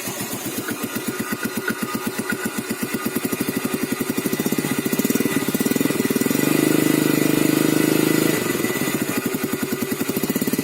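Yamaha Vega ZR's carbureted single-cylinder four-stroke engine and exhaust idling with an even beat. It is revved up and held for about two seconds in the middle, then drops back to idle.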